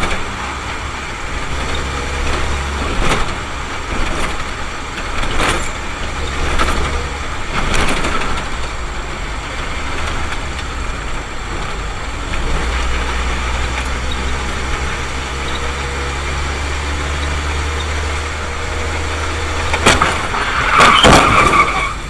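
Engine hum and road noise inside a moving car, picked up by its dashcam, with a few light knocks and a loud sudden noise near the end.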